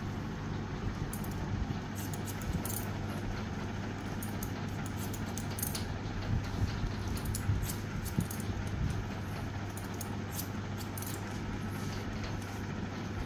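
Barber's scissors snipping hair in short, irregular runs of crisp metallic clicks, over a steady low background hum.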